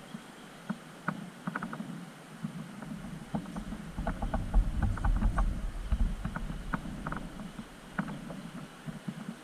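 Radio-controlled scale rock crawler on the trail: scattered clicks and knocks of tyres and chassis on rock over a low drone. A deeper rumble swells from about four to seven seconds in.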